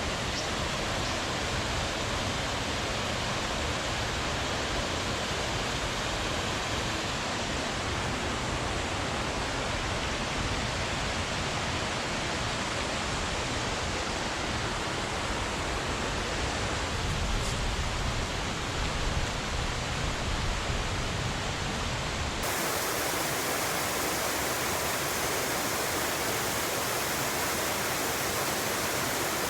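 Steady rushing of a small waterfall with moderate flow, Zato Falls. About 22 seconds in the sound changes abruptly, losing its low rumble and turning brighter and hissier.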